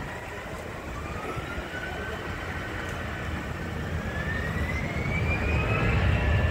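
EasyJet airliner's jet engines spooling up for takeoff: a whine rising steadily in pitch over a deepening rumble, growing louder.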